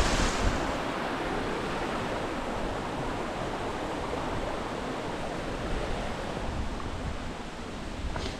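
Steady rushing of a fast mountain river, the Bode, a little louder for the first half second.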